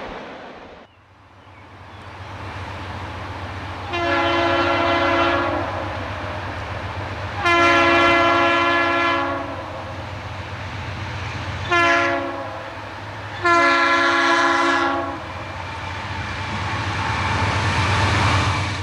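Freight locomotive air horn sounding the grade-crossing signal, two long blasts, a short one and a long one, over the steady low rumble of the approaching train's diesel engines, which grows louder near the end.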